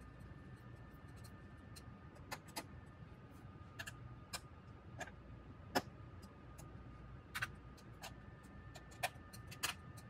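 Irregular small clicks and ticks of a screwdriver tightening screws into a laptop's plastic bottom case as it is handled, the sharpest click about six seconds in.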